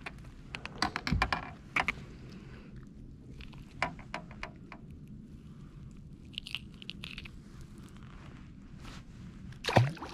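Small clicks, scrapes and rustles of gloved hands and fishing gear while a small fish is held and unhooked. Near the end comes a loud splash as the fish is dropped back into the water.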